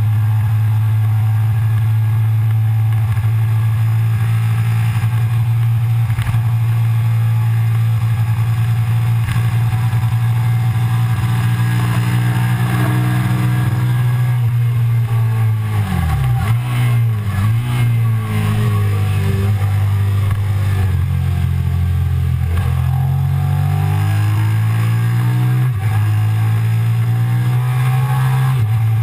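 Suzuki SV650's V-twin engine heard onboard, with wind rushing over the microphone. It holds steady high revs for the first half, then drops in pitch in a few quick dips, downshifting into a corner. It stays lower for a few seconds, then rises again as the bike accelerates out.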